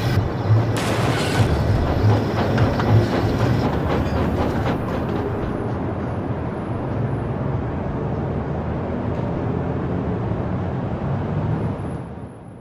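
Steam train running, with a steady rumble, low pulses about one and a half a second and a short burst of hiss about a second in; it fades out near the end.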